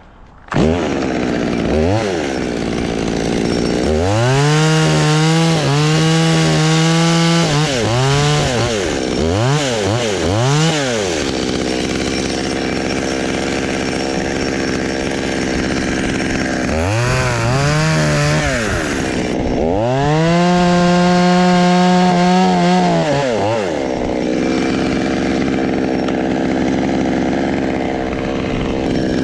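Chainsaw running at high speed: it comes in suddenly, is throttled up to full speed several times, holding there for a second or more, and drops back to idle in between.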